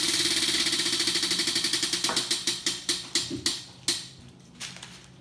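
Tabletop prize wheel spinning, its pointer ticking against the pegs: rapid clicks that slow and spread out over about four seconds as the wheel coasts to a stop.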